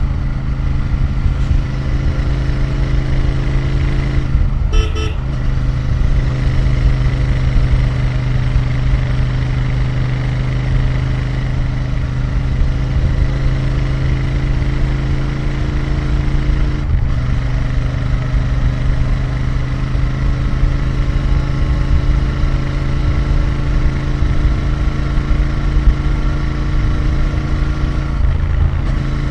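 Royal Enfield Interceptor 650's parallel-twin engine and exhaust running at steady cruising revs on the move. The engine note briefly drops out twice, once past the midpoint and once near the end. A short double horn toot sounds about five seconds in.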